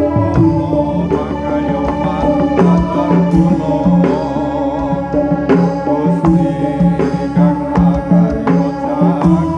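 Live Javanese gamelan music: steady ringing metallophone and gong tones under a regular hand-drum pattern, with a wavering melodic line on top.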